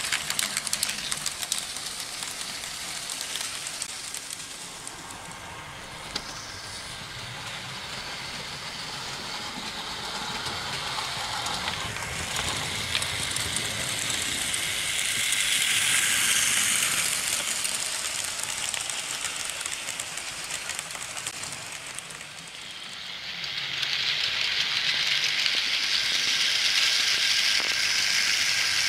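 Märklin H0 model trains running on tinplate M track, the metal wheels rolling along the rails. The sound swells as the trains pass close, loudest near the end as the black-and-red steam locomotive goes by.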